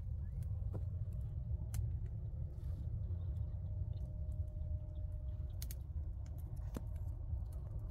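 Low, steady rumble of wind on the microphone, with a few faint clicks scattered through it.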